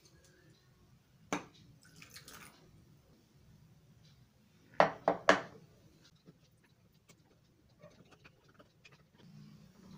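Kitchen utensil handling: a single click, then three quick, sharp clinks about five seconds in as a metal spoon knocks against a glass jar of preserves, followed by faint ticks of stirring in a glass sauce boat.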